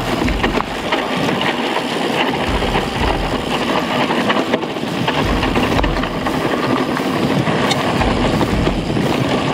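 Mountain bike riding fast over a dirt trail: a steady rush of tyres on gravel with rattling and clicks from the bike, and on and off a low buffeting of wind on the action camera's microphone.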